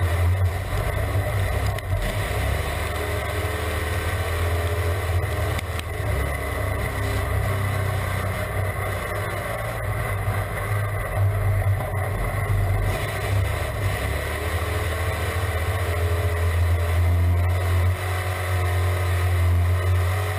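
Crate sportsman dirt race car's V8 engine running at speed, heard from inside the cockpit, its note rising and falling.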